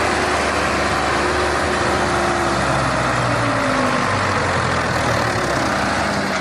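Heavy vehicle engine running steadily, its pitch dipping slightly about four seconds in.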